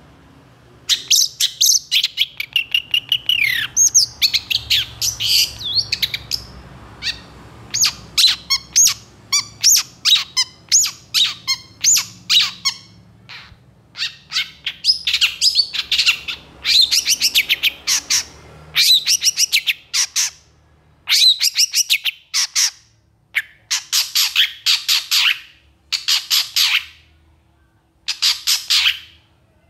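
Long-tailed shrike singing a loud, agitated song: dense bursts of rapid, harsh chattering notes mixed with a few gliding whistles, in phrases broken by short pauses.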